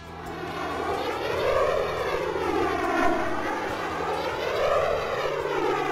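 Jet airliner flyby sound effect: a steady rushing jet roar with a slow sweeping, phasing quality that swells and ebbs twice.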